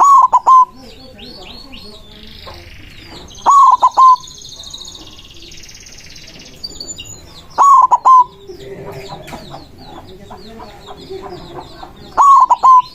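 White zebra dove (perkutut) cooing: a loud, short phrase of about three notes, repeated four times roughly every four seconds. Small birds chirp faintly and continuously behind it.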